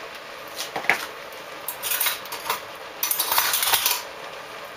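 Metal spoon clinking lightly against kitchenware a few times, then a short rough scraping rustle about three seconds in, like a spoon scooping sugar from a container.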